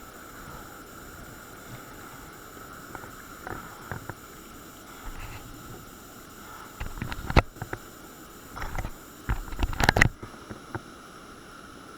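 Kayak on moving river water: a steady wash of water, then a run of loud splashes and knocks against the boat between about seven and ten seconds in.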